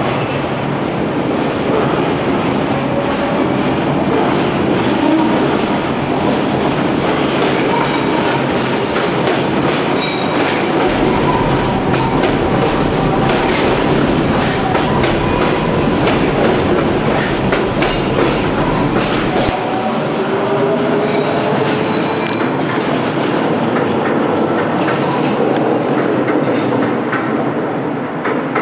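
A Scarborough RT Mark I ICTS linear-motor train pulls out and runs past close by. It makes a steady rumble of steel wheels on the rails, with wavering squeals and scattered clicks from the track, and eases off near the end as it moves away.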